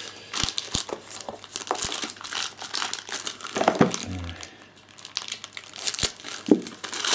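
Clear plastic packaging bag crinkling in irregular crackles as it is handled and slit open with a knife.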